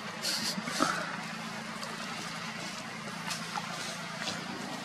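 Steady low vehicle-engine hum under an even outdoor hiss, with a few brief rustles in the first second.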